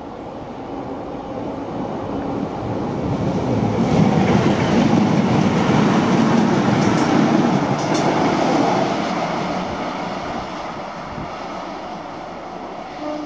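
Steam-hauled special train led by the A4 Pacific Union of South Africa passing at speed. The noise builds over about four seconds, stays loud for several seconds with a few sharp clicks, then fades away.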